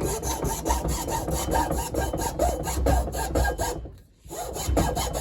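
Small hand saw cutting into a pine wood block in quick back-and-forth strokes, with a short pause about four seconds in before the strokes start again.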